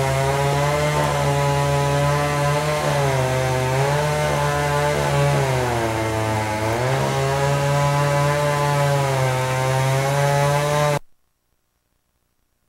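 Two-stroke chainsaw engine running steadily at high speed, its pitch sagging briefly twice, as under load in a cut. The sound cuts off abruptly near the end.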